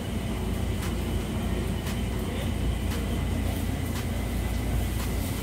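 Steady low droning background noise with a faint high whine over it and a few faint clicks, the constant machinery hum of a kitchen.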